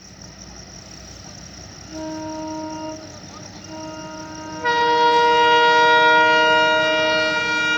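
Diesel train horn: a short blast about two seconds in, a second blast starting near four seconds, then a louder two-tone blast held for about three seconds.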